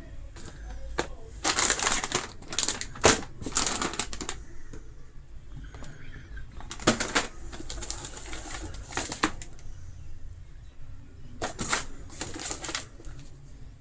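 Gift packaging being handled and unwrapped: crinkling and rustling in three bursts of a second or a few seconds each, with quieter pauses between.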